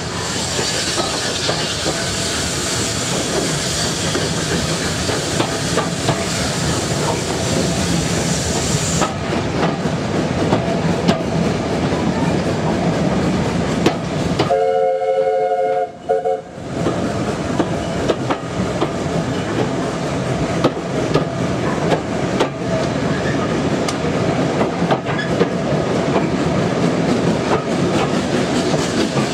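Steady rumble and clatter of a heritage railway coach's wheels running over the track, heard through an open carriage window, with a hiss over it for the first third. About halfway, the running noise drops away for two seconds while a whistle sounds one chord of three notes.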